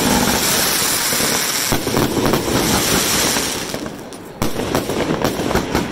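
Aerial fireworks launching and bursting in quick succession, with dense crackling from the exploding stars. The barrage thins a little past halfway, then a sharp loud bang about four seconds in sets off more crackling.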